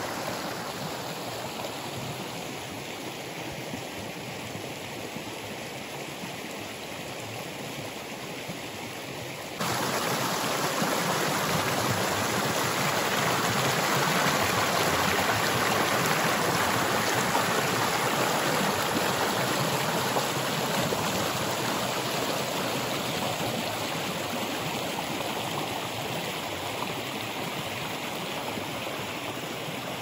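Small rocky mountain stream rushing and splashing over stones, a steady sound of running water. About ten seconds in, it jumps suddenly to a louder, closer rush of white water, which then eases slowly.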